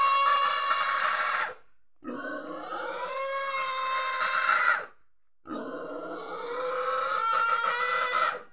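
A pig held down on the ground for slaughter, squealing in distress: three long squeals with short breaks between them.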